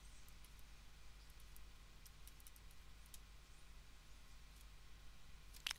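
Near silence with faint, scattered clicks from handwriting being entered on a computer, and one sharper click near the end.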